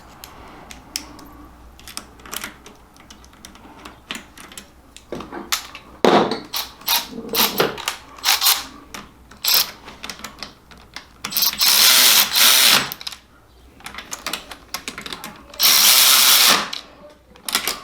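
A power drill driving bolts into a transmission case, in two runs of about a second and a half and a second, the first about two thirds of the way in. Around them, tools and bolts click and clink against the metal case.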